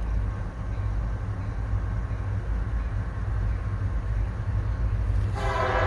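Diesel freight locomotive running with a heavy, steady low rumble. Its air horn starts sounding near the end.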